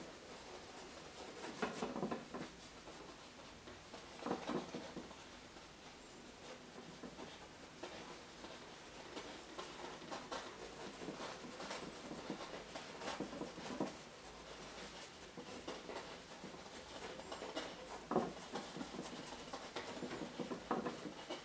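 A paintbrush dabbing and scrubbing oil paint onto canvas: faint, irregular scratchy taps and strokes.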